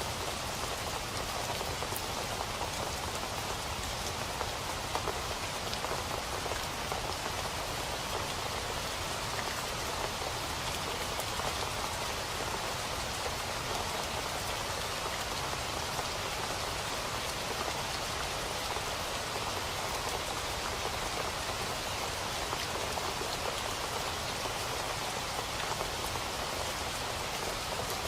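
Steady rain falling, an even hiss of drops on a surface with scattered small drip clicks.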